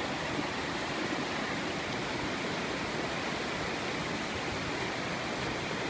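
Steady rushing of a fast river's rapids, an even wash of water noise without pauses.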